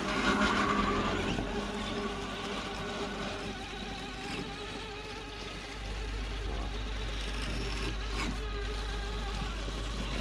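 Electric motors and gear trains of radio-controlled scale rock crawlers whining steadily as they creep up a muddy bank. The sound is briefly louder at the very start, and a low hum grows stronger about six seconds in as a second crawler drives in.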